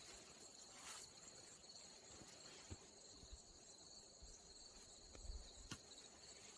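Faint, steady high-pitched chorus of insects such as crickets, with a few soft clicks.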